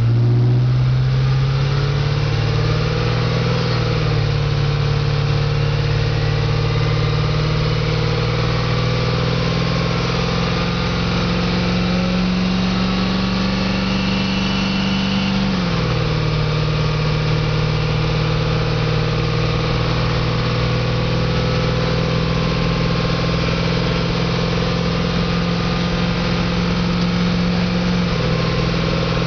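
Caterpillar 3208 diesel V8 in a 1989 GMC 7000 truck, heard from inside the cab pulling through the gears of its Allison 650 automatic. The engine note climbs slowly under load, drops at an upshift a few seconds in, climbs again, then drops sharply at a second upshift about halfway through and settles at a steady pull.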